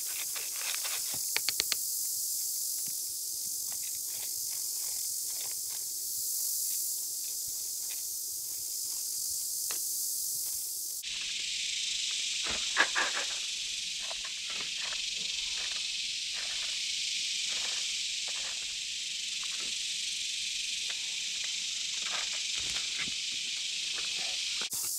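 Steady, high-pitched chorus of summer insects, which drops abruptly to a lower pitch about 11 seconds in. Over it run scattered scrapes and clicks of digging in dirt, with a sharper knock about 13 seconds in.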